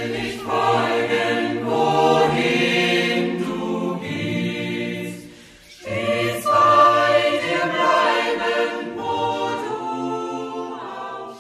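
Choir singing, in two long held phrases with a short break about halfway.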